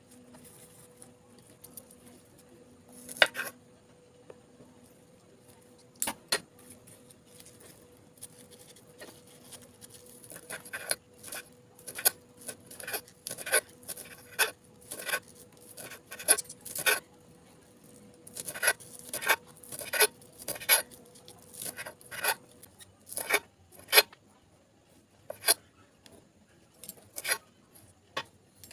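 A cleaver-style kitchen knife chopping fresh coriander and spring onions on a marble countertop: sharp knocks of the blade on the stone, a few at first, then quick runs of chopping broken by short pauses.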